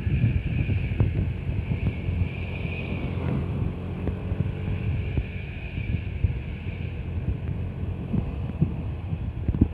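Low, uneven rumble of road traffic with wind buffeting the microphone.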